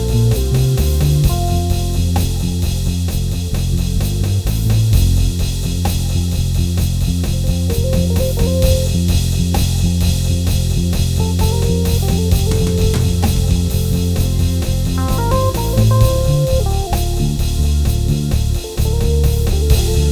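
Instrumental gospel worship music: keyboard chords and melody over a heavy bass line and a steady drum beat.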